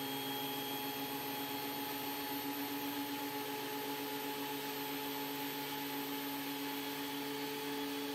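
DeWalt DW734 thickness planer running steadily, a constant motor whine and hum, while its feed rollers pull an ash board through. The head is set too high to bite, so the board passes without being cut and there is no chip-cutting noise.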